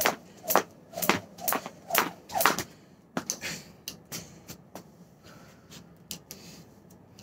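Jump rope strokes on a wooden porch deck, sharp slaps about twice a second, stopping about two and a half seconds in. Then lighter clicks and rustles as the rope and its plastic handles are gathered up.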